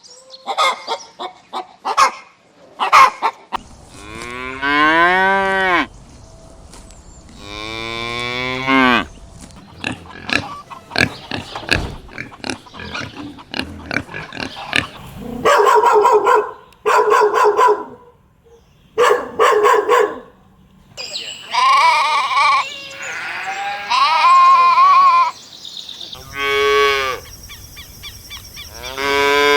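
Cattle mooing: a series of long calls, some of them clipped into short repeated pulses. Between them come stretches of sharp clicks and knocks.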